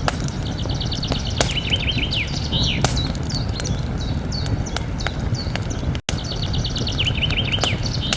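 Campfire crackling, with sharp pops over a steady low rumble. A songbird sings twice: a fast trill of high ticking notes ending in a few lower slurred notes, with scattered chirps between. The sound cuts out for an instant about six seconds in.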